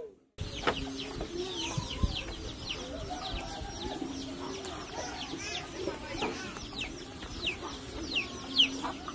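Outdoor bird ambience that cuts in a moment after a brief silence: many short high chirps, each falling in pitch, repeat throughout over lower wavering calls and a steady thin high whine.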